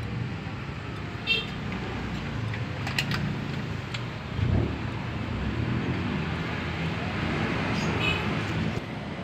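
Steady road traffic noise from passing vehicles, with two short high tones, one about a second in and one near the end, and a sharp knock about three seconds in.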